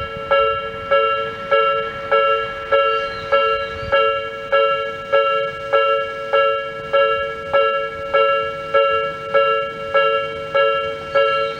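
Japanese railway level crossing's electronic warning bell, Nikko type with a long, slow decay, ringing steadily. It gives a chiming ding about every 0.6 seconds, each ding lingering into the next. This is the alarm that a train is approaching and the crossing is closing.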